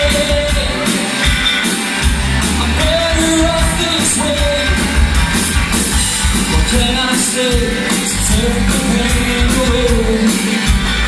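Live rock band playing at full volume: electric guitars, bass guitar and drums with steady cymbal hits, and a lead voice singing long held notes.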